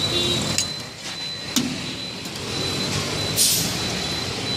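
Background noise of a roadside food stall with traffic, a faint steady high whine, a few sharp clinks of steel utensils, and a short hiss about three and a half seconds in.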